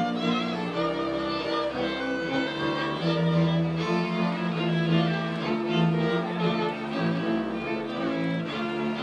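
Slovak folk string band playing: fiddles carrying a tune over a bowed bass line.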